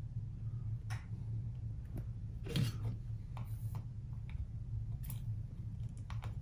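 Wire being handled and wrapped around the copper-foiled edge of a stained glass suncatcher: scattered light clicks, ticks and short scrapes, over a steady low hum.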